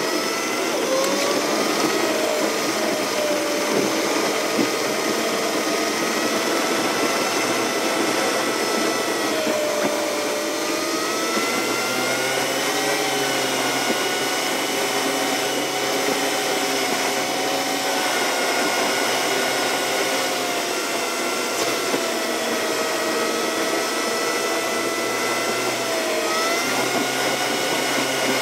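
Car engine and road noise heard inside the cabin while driving at speed: a steady drone with a faint hum whose pitch drifts up and down a little with engine speed.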